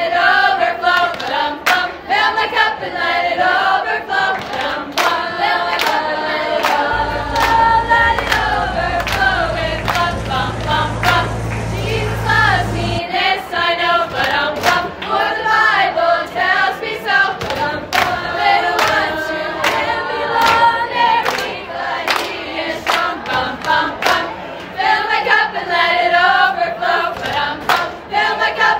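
A group of voices singing together, with rhythmic hand clapping keeping time.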